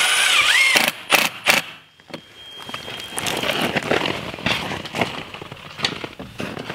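A cordless drill whines up and down as it drives a screw into aluminum angle trim, followed by a few sharp clicks. After that come footsteps over plastic sheeting and a sawdust-covered floor.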